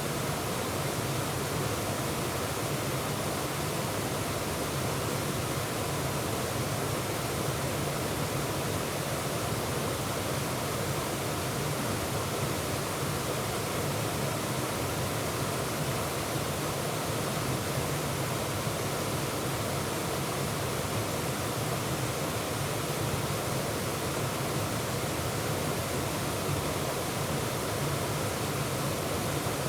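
Waterfall: a steady, unbroken rush of falling and churning water, heard close up from the middle of the falls.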